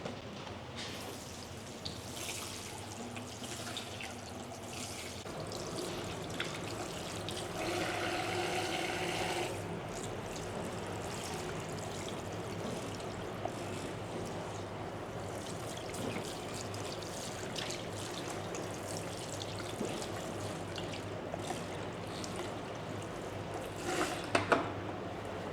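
Running water splashing and trickling steadily during a hair wash, briefly louder and fuller about eight seconds in. Small clicks of handling are scattered through it, with a few louder knocks near the end.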